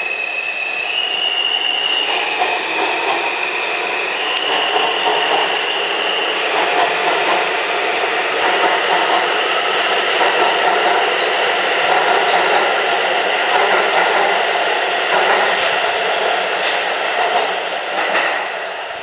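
R160 subway train pulling out of the station: a high motor tone steps up in pitch a few times as it accelerates, then the running noise of the cars on the rails builds and fades away near the end as the train leaves.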